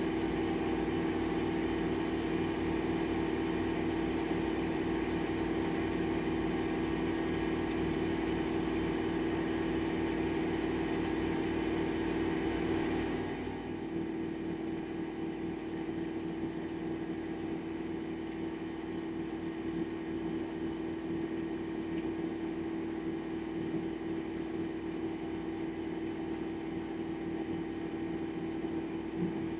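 Steady machine hum with a strong low tone. About halfway through, the hiss above it drops away and it gets a little quieter.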